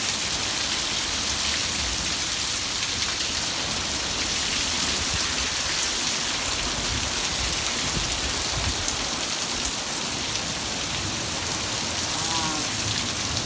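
Heavy desert monsoon downpour: very heavy rain pouring down in a steady, loud, even hiss.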